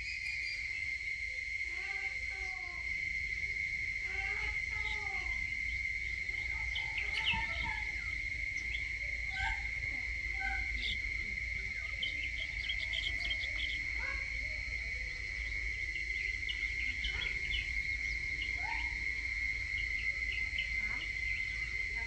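A steady, high, unbroken insect drone of crickets or cicadas, with birds calling and chirping over it every second or two, and a low rumble underneath.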